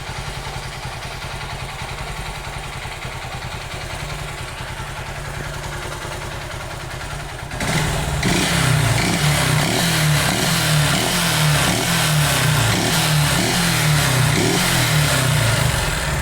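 Honda CG Titan 150's single-cylinder four-stroke engine running with an abnormal engine noise, idling at first, then about halfway through it runs faster and louder with a wavering beat. The noise was later traced to a scored piston skirt from lack of lubrication, a clogged oil passage.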